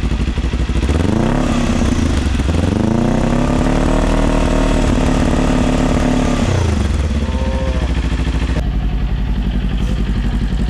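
Kawasaki Ninja 400's parallel-twin engine through a Yoshimura R77 slip-on exhaust, idling and then being revved. There is a short rev about a second in and a longer held rev from about three to six and a half seconds, then a quick blip before it settles back to idle.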